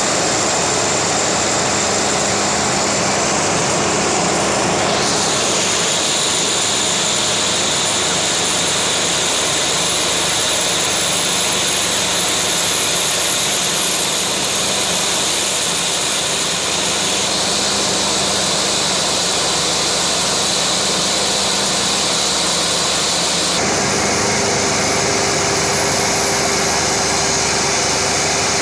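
Loud, steady machine noise with a high-pitched whine that slowly rises, shifting abruptly in tone a few times.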